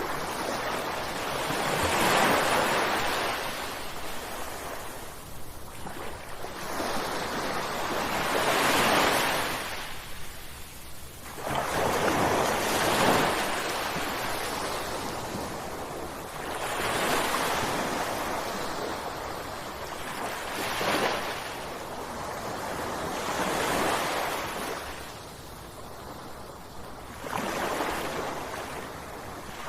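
Ocean waves breaking on a shore, one surge of surf rising and washing away every three to five seconds.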